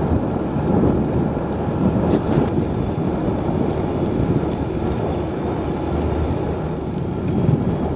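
Wind rushing over the microphone of a camera mounted on a moving bicycle, a steady low rumble mixed with road noise.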